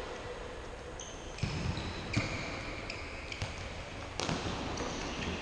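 Futsal ball being kicked and bouncing on an indoor court, about four sharp thuds that echo in the large hall, with sneakers squeaking on the floor between them.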